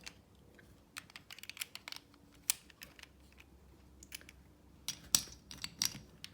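Plastic pieces of an apple-shaped puzzle cube clicking and tapping as they are fitted back into the cube by hand, in irregular sharp clicks, the loudest about two and a half and five seconds in.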